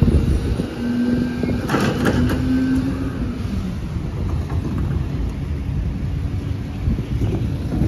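Diesel engine of a Volvo FE rear-loader garbage truck running, with passing road traffic. A steady hum stops about three seconds in, and a brief clatter comes about two seconds in as a plastic wheelie bin is handled at the truck's rear.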